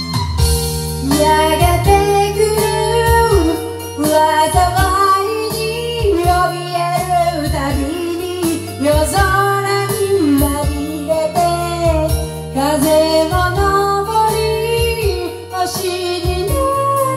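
A woman singing a Japanese song through a karaoke microphone over the song's karaoke backing track.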